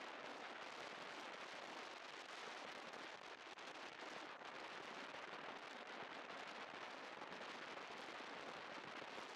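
Steady crackling rush of wind and road noise on a moving scooter, picked up by a chest-mounted camera, with no clear engine note.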